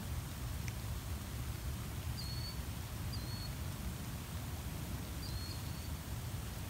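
Steady hiss of falling rain over a low rumble, with a small bird giving three short, high chirps about two, three and five seconds in.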